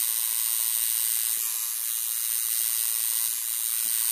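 Electric tattoo machine buzzing steadily while its needle draws black outline work into the skin of a forearm.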